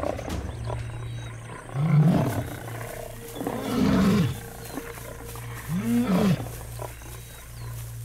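Male lion roaring in three loud, short calls about two seconds apart, each rising and then falling in pitch.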